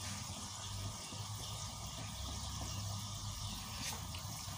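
Asado sauce simmering in a wok with a steady bubbling hiss while a spatula stirs it.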